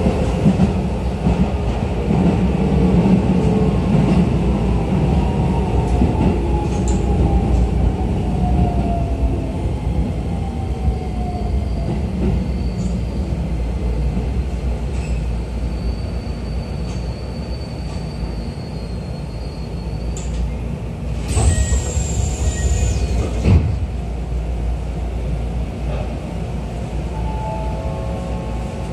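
Keisei New 3000-series electric train heard from inside the car, braking: the traction motor whine falls steadily in pitch under the running noise, with a thin high squeal. About 21 seconds in comes a two-second hiss of air.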